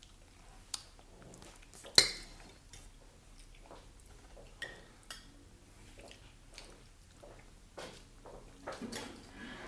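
Cutlery clinking against plates and bowls while eating: scattered light clinks, with one sharp, loud clink about two seconds in.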